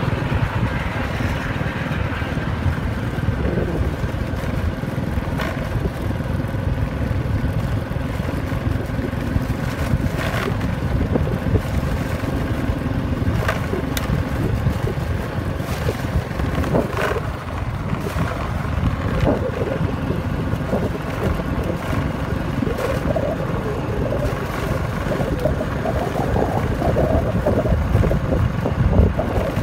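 Motorbike engine running steadily as the bike rides along a dirt track, with wind on the microphone and a few brief knocks.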